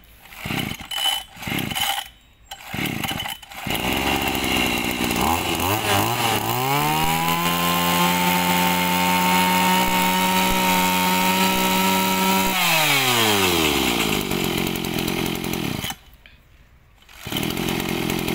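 Mitsubishi TL261 26cc two-stroke brush cutter engine catching after a few short bursts and settling to idle. It is then revved to full throttle, held there for about five seconds, and let back down to idle. The sound dips briefly near the end.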